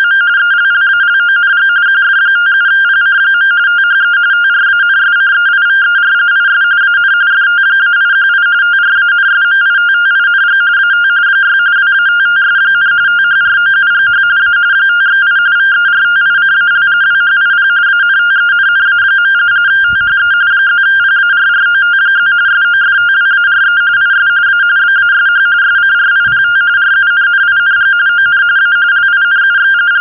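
RTTY (radioteletype) data signal coming from a Yaesu VX-6 handheld transceiver's speaker: a loud, unbroken warble flipping rapidly between two close tones.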